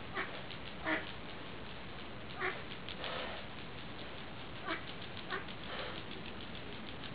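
A duck quacking, about six short calls spaced a second or more apart, over a steady background hiss.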